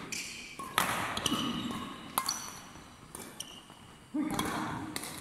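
Badminton rally: rackets striking the shuttlecock several times, about a second apart, each hit sharp and echoing in a large hall.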